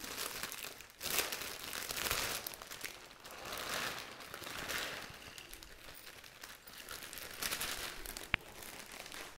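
Clear polythene bag crinkling and rustling as it is handled and tipped, with coarsely crushed cashews and almonds sliding out into a plastic bowl. There is a single sharp click near the end.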